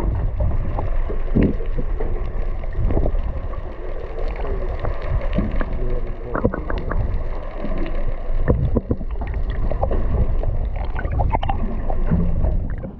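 Fishing boat at sea: a steady low rumble with scattered knocks throughout.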